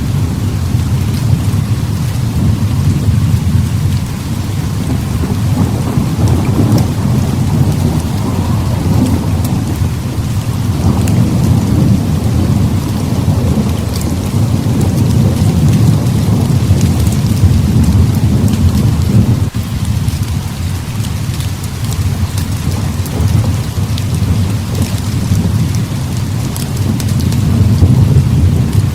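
Heavy rain pouring steadily, with low rolling thunder that swells and fades several times.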